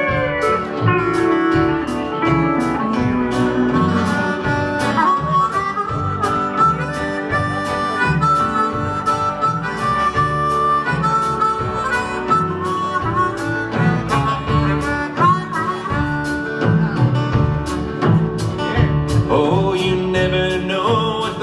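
Live Americana band in an instrumental break: a harmonica plays the lead melody over guitars, bass and a steady drum beat.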